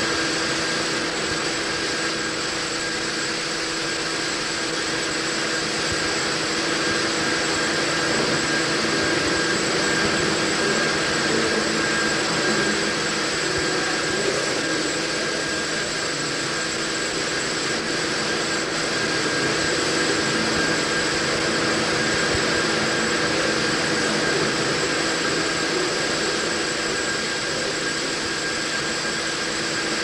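Hesketh twin-cylinder steam winding engine running: a steady hiss with a constant hum of several fixed tones, no separate beats and no change in pace.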